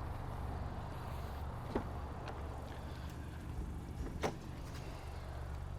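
2016 Honda Accord Sport's trunk latch released by the key fob: a few short clicks, the sharpest at the very end, over a steady low hum.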